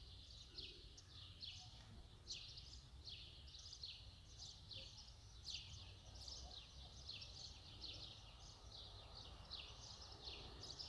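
Faint, steady run of high chirps, each a quick downward sweep in pitch, about two to three a second, like a small bird calling over and over, with a low hum beneath.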